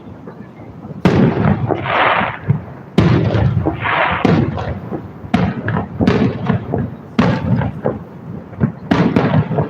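Aerial fireworks shells bursting: loud bangs about a second and three seconds in, each followed by crackling, then a run of further bangs.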